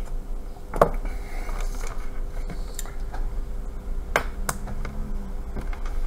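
A few sharp clicks and taps of small metal parts and tools being handled on an opened iPad, the loudest about a second in and two more close together past the middle, over a steady low electrical hum.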